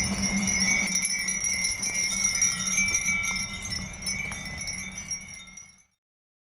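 Many Japanese furin wind chimes ringing together in a dense, continuous tinkling over a low hum, fading out about five and a half seconds in.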